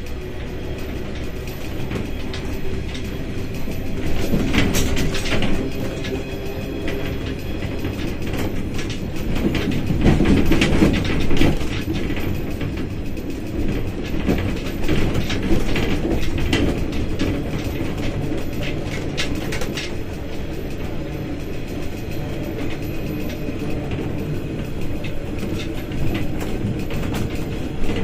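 Train running along the track: steady rumble with metallic clatter and rattling from the wheels over the rails and a turnout, swelling louder a few seconds in and again about ten seconds in.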